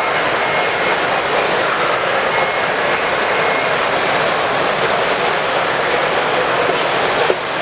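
Steady, loud hall noise of a busy exhibition floor, an even rush with no clear voices, and a single sharp click shortly before the end.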